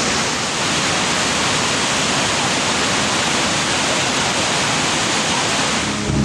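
Steady, loud rush of the Kravica waterfall's cascades pouring into the river. Right at the end, low music begins to sound over it.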